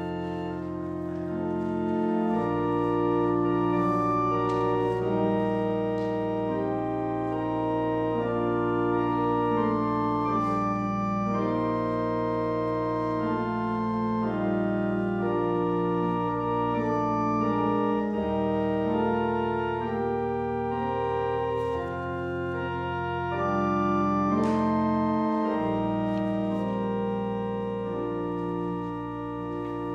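Organ playing slow sustained chords over long held bass notes, the bass note changing every few seconds.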